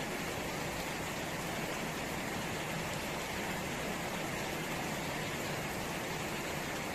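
Steady rain falling and splashing into puddles on the ground, an even hiss with no breaks.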